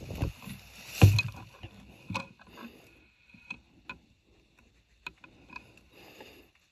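Rifle handling noise: scattered small knocks, clicks and rustles, with one louder thump about a second in, as the scoped rifle is swung onto the squirrel and steadied for aim.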